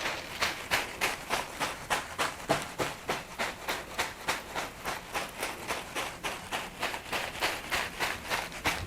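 A bunch of flowers brushed in quick soft strokes over the body, a rhythmic swishing at about three strokes a second.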